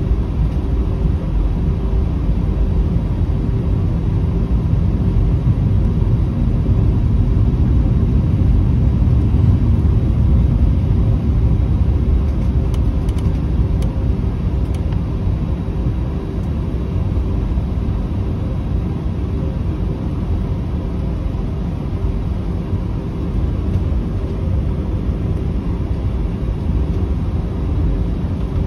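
Cabin noise of an Airbus A320 with IAE V2527-A5 engines, taxiing at low thrust: a steady deep rumble with a faint steady hum, swelling slightly about a third of the way in.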